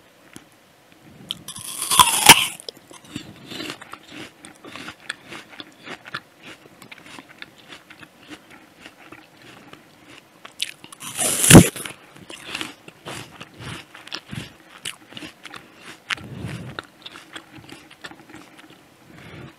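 Bites into a juicy Jazz apple, close to the microphone: two loud crunches, one about two seconds in and one just past the middle, with chewing clicks in between.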